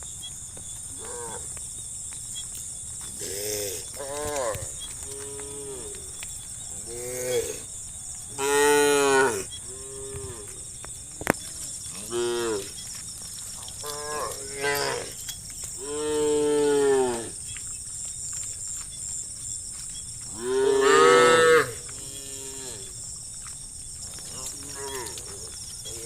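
A herd of cattle mooing, many calls in turn, some short and some drawn out for a second or more. The loudest, longest moos come about a third of the way in and again near the end. A steady high hiss runs underneath.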